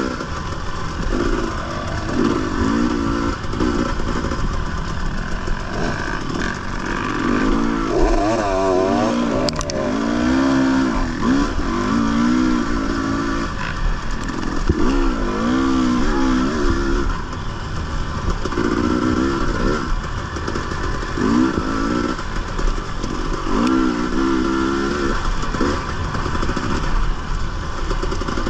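Dirt bike engine being ridden hard off-road, its revs climbing and dropping again and again every second or two as the throttle is worked.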